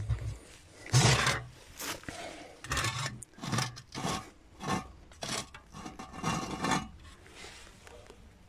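Galvanised steel cover plate on a concrete pipe trap scraping over the concrete as it is slid open by hand: a run of about ten short rasping scrapes.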